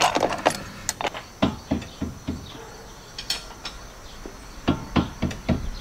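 Hand tools working on car suspension hardware: irregular sharp metallic clicks and clinks, a few at a time, with quieter gaps between.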